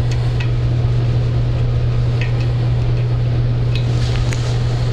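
A steady low background hum, with a few faint light clicks from a screwdriver setting the small screw in a ceiling fan's hanging ball.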